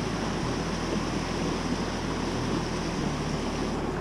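Steady rush of a fast-flowing stream running through rapids.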